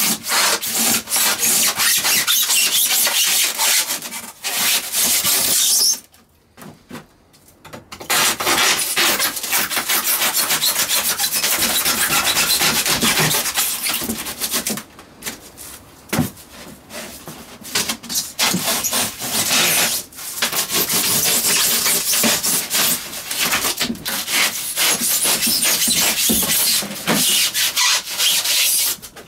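Hand saw cutting through a white expanded-polystyrene support panel with fast rasping strokes, pausing for a couple of seconds about six seconds in and again briefly around the middle.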